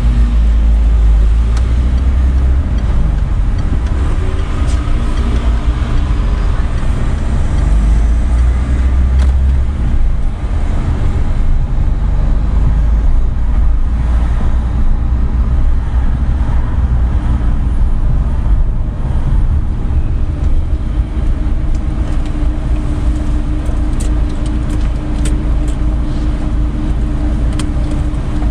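A car driving slowly through city traffic, with a steady low rumble of engine and road noise. A steady hum joins in during the second half, and there are a few faint clicks near the end.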